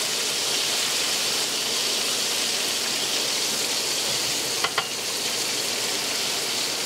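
Battered shellcracker fillets deep-frying in hot oil in a wok: a steady sizzle. Two light clicks of metal tongs come about two-thirds of the way through.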